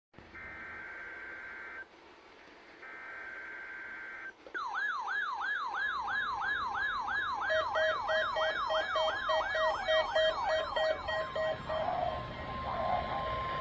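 Emergency alert tones: two short buzzy data bursts of an alert header, then an alarm that sweeps rapidly up and down several times a second, joined by pulsing steady beeps. About eleven seconds in, a single steady tone near 1 kHz, the NOAA Weather Radio warning alarm tone, takes over.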